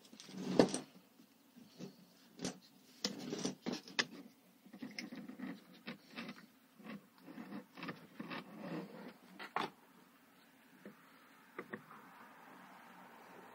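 Hands handling a green Flexzilla pressure-washer hose and screwing its end fitting onto an M22-14 hose union: irregular small clicks, taps and rustling scrapes that thin out over the last few seconds.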